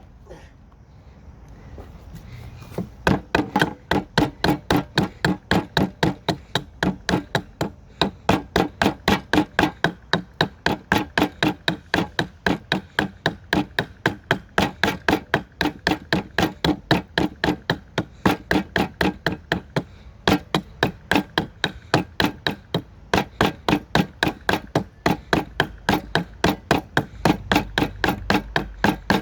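Hatchet chopping small chips off a cedar block in quick, regular strikes, about three a second, starting about three seconds in.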